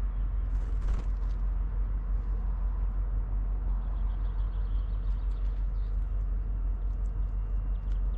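Steady low outdoor rumble with faint, high chirps of small birds from about four seconds on, and a brief rustle about half a second in.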